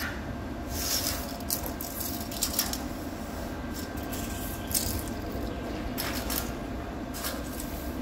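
Steady low machinery rumble with a faint hum, with short scratchy noises from work on a steel plate and on gravel, about six of them, scattered through it.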